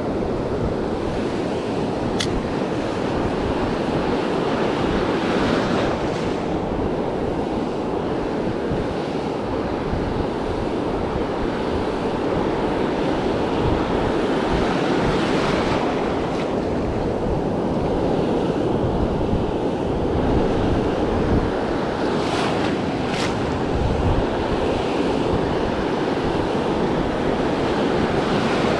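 Ocean surf breaking and washing up the beach, a steady rushing wash with wind buffeting the microphone. The surge swells louder and hissier a few times, about 6, 16 and 23 seconds in.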